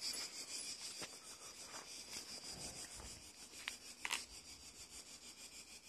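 Cicadas buzzing: a faint, steady, high-pitched pulsing drone, with a few soft clicks.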